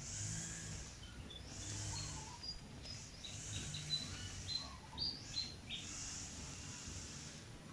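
Outdoor ambience of small birds chirping in short, high calls scattered over a steady hiss.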